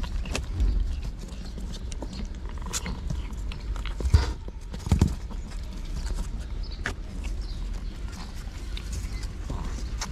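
A mother cat licking and grooming her kittens in a cardboard box: irregular soft clicks and scuffs of tongue and paws against the cardboard, with two louder knocks about four and five seconds in.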